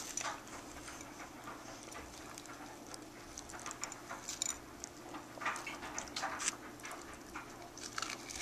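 A dog eating a tidbit of roast chicken: scattered short licking and chewing smacks at irregular times, over a faint steady hum.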